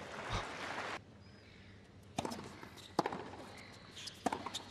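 A brief burst of crowd applause on a tennis stadium court that cuts off abruptly about a second in. Then a few single sharp knocks of a tennis ball, bounced on the hard court and struck by a racket as a new point starts.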